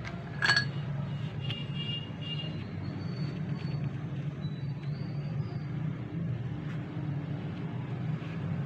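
Steady low hum throughout, with one sharp click about half a second in as the plastic waste-bin section of an HP 80A toner cartridge is handled.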